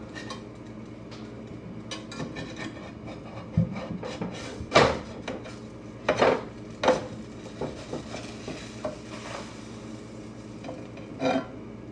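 Spatula scraping and knocking against a frying pan while flipping pancakes. There are several sharp clacks spaced through it, the loudest about five seconds in.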